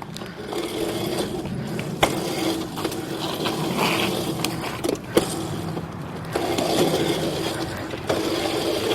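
Small electric dirt bike being ridden: a steady motor hum with chain and drivetrain rattle, and a few sharp clicks or knocks, one about two seconds in and one about five seconds in.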